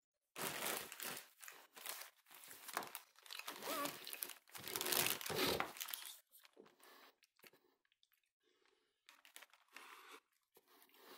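Plastic packaging crinkling and rustling in irregular bursts as it is handled, busiest in the first half and sparser and fainter later.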